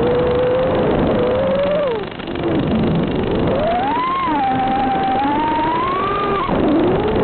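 Electric motors and propellers of an FPV quadcopter whining over a hiss, the pitch rising and falling with the throttle. The whine sinks and briefly quietens about two seconds in, climbs back to a high steady note, then drops sharply near the end and rises again.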